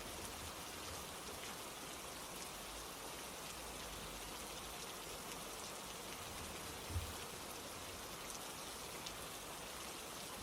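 Steady rain falling, an even hiss with faint scattered drop ticks. A single soft low thump about seven seconds in.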